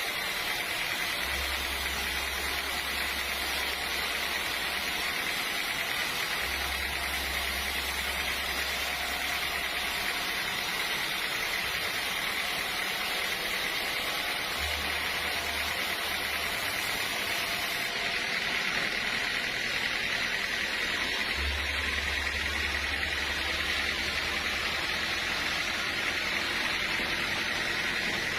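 Sawmill machinery running steadily, with a low hum that comes in and cuts out four times.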